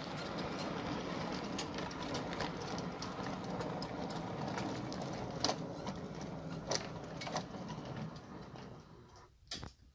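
O gauge model train running along the track: a steady mechanical running noise with a few sharp clicks, fading away near the end.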